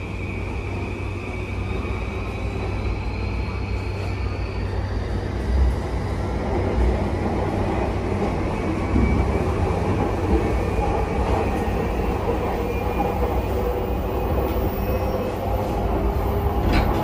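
Running noise of a JR East E235 series Yamanote Line train heard from inside the passenger car: a steady low rumble of wheels on rail with an electric whine from the inverter and traction motors that rises in pitch in the first few seconds as the train picks up speed. A few sharp clacks come near the end.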